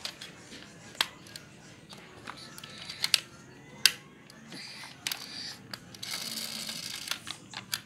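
Sharp plastic clicks and taps from a toy police car being handled as its small door is worked open, with a longer scratchy rustle near the end.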